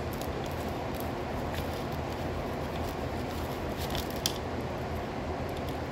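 Steady low hum and hiss, with a few faint soft clicks and crackles as a plastic spoon digs a tomato seedling out of its coco coir cell.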